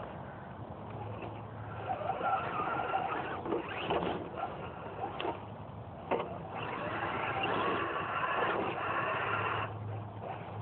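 Radio-controlled scale crawler trucks (Axial SCX10) creeping through dry leaves and brush, their electric motors and gear drivetrains whining along with the crackle of leaves and twigs under the tyres. There are a few sharp snaps near the middle, and the whine is strongest toward the end.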